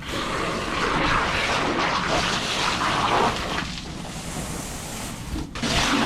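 Water spraying hard against the welding rig truck in a steady hiss, with a brief break just after five seconds.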